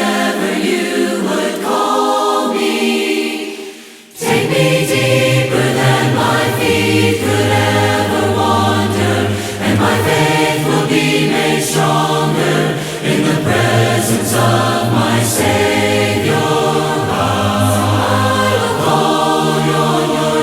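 Choir singing a worship song in several-part harmony. The singing fades almost away about four seconds in, then comes back fuller, with low bass notes added.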